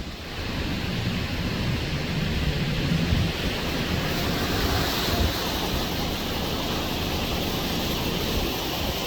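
Hurricane wind blowing against the microphone: a loud, steady rush with low rumbling buffets.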